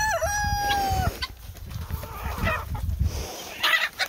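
A rooster crowing, its long, slightly falling last note ending about a second in, followed by scattered clucks from the flock and a brief flutter of wings near the end.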